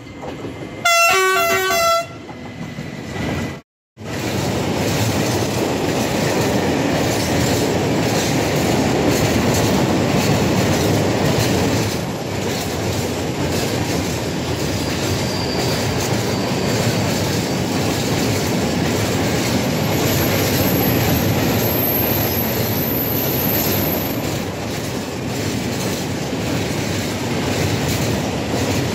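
Transmontana class 480 electric locomotive sounding a multi-tone horn for about a second as it approaches. After a brief cut in the sound, a long rake of open freight wagons rolls past close by with a steady rumble of wheels and a clickety-clack over the rail joints.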